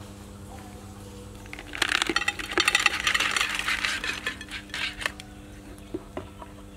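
Live palm weevil grubs poured from a plastic container into an enamel bowl: a dense clattering patter of many small knocks for about three seconds, thinning to a few scattered clicks. A faint steady hum runs underneath.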